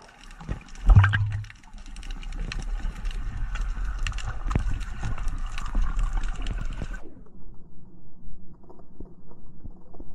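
Underwater sound of air bubbles: a loud low gurgling burst about a second in, then a steady crackle of bubbling with many small clicks over a low rumble. The higher crackle drops away about seven seconds in, leaving only the low rumble.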